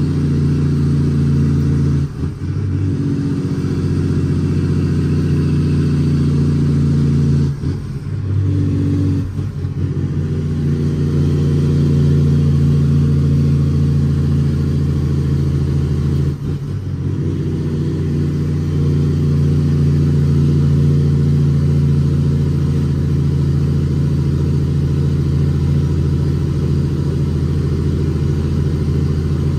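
ISX Cummins inline-six diesel of a dump truck pulling a full load of gravel, heard from inside the cab. The engine drones steadily, with three short drops in power as gears are changed: about 2, 8 and 16 seconds in.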